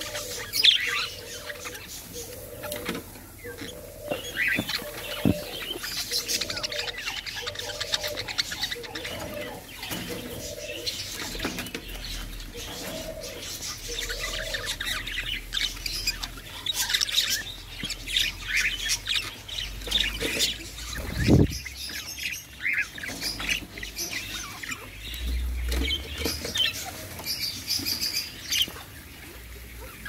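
Caged parakeets chirping and squawking, with many short high chirps throughout. During the first third, a lower call repeats about once a second.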